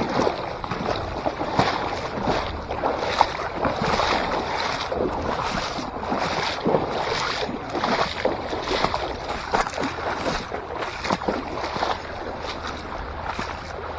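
Water sloshing and splashing with each stride as a person in rubber waders wades through shallow lake water.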